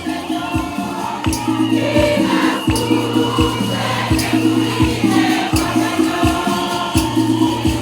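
Church choir singing a hymn, backed by a steady drumbeat and rattling hand percussion.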